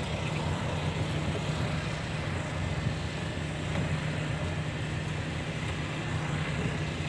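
Six-wheel lorry's engine running with a steady low drone, heard from inside the cab while driving.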